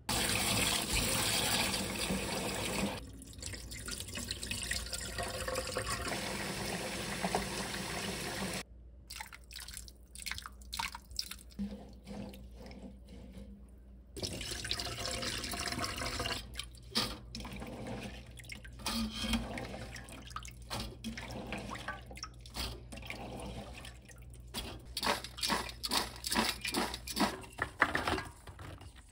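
Tap water running and splashing into a stainless steel bowl of cut garlic scapes in the sink, with breaks and irregular splashes as the scapes are rinsed. Near the end, a rapid patter as wet garlic scapes drop into a strainer lined with paper towels.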